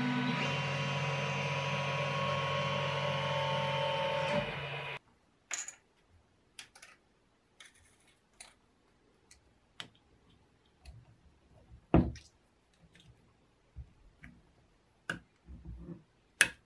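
A 3D printer running as it prints, its stepper motors whining in shifting tones over a steady fan hum; it cuts off sharply about five seconds in. Then scattered light clicks and taps of small parts being handled and fitted into an aluminium motor housing on a wooden bench, with one sharper knock about halfway through.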